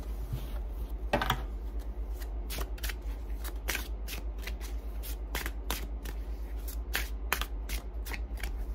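A deck of tarot cards being shuffled by hand: a run of short, irregular card clicks, about two to three a second, the loudest about a second in.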